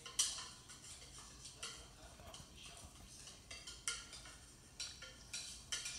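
Cake batter being scraped out of a ceramic mixing bowl into a cake pan: a run of short, irregular scrapes and clicks of a utensil against the bowl, the first one the loudest.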